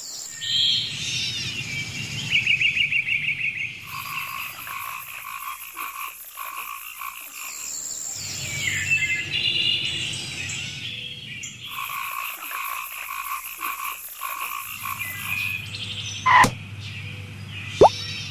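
Nature soundscape of frogs croaking, with a high shrill buzzing that comes and goes twice. Two short sharp sounds stand out near the end.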